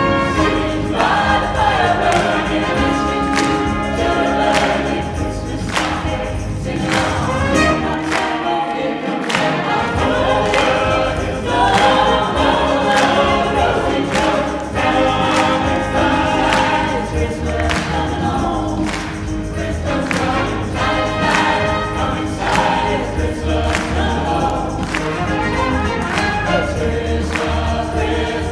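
Mixed choir singing with microphones, accompanied by a grand piano over a steady beat.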